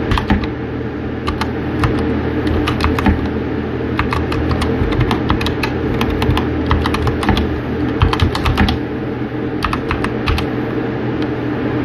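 Rapid, continuous typing on a MageGee 60% compact mechanical keyboard, a quick run of sharp key clicks over a steady low hum.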